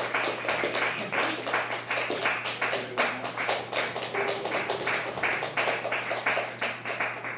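Rapid, irregular tapping or clapping, about five or six sharp strikes a second, over a steady amplifier hum; the strikes stop near the end.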